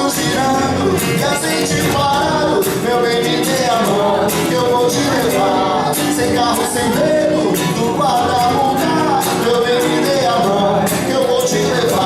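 A band playing a rock song live, with pitched instruments moving through a melody over a steady beat of percussion hits.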